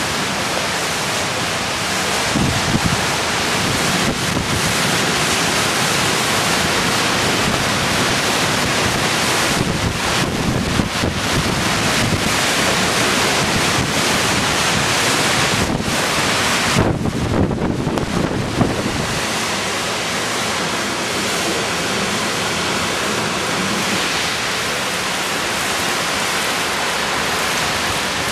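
Hurricane-force wind and driving rain: a loud, steady roar of wind and rain, with the wind buffeting the microphone, most heavily in a gust a little past halfway.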